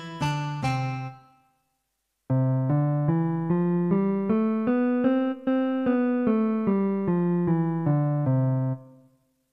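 Yamaha PSS-F30 mini keyboard playing a short melody on one of its preset voices, a keyboard tone: the last notes of one phrase die away, there is a brief pause, then a new phrase of about fifteen notes at a moderate pace fades out near the end.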